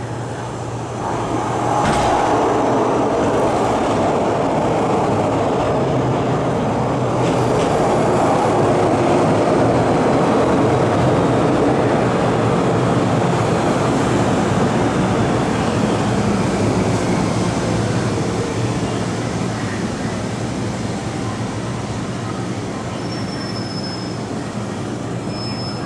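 MTR M-Train electric multiple unit pulling into a station behind the platform screen doors. Its running noise rises about a second and a half in as it comes alongside, holds for several seconds, then slowly fades as it slows to a stop, with brief high squeals near the end.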